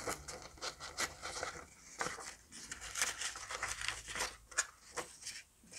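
Paper crackling and tearing in a run of short, irregular rustles as a freshly glued wooden ship-model frame is peeled off the paper pattern that the glue has stuck to.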